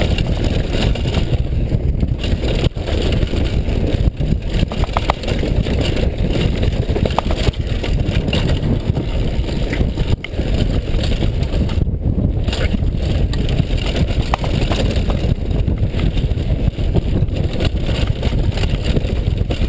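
A mountain bike running fast down a loose dirt and gravel trail: a steady rushing noise of wind on the microphone and tyres on gravel, with frequent knocks and rattles as the bike clatters over bumps.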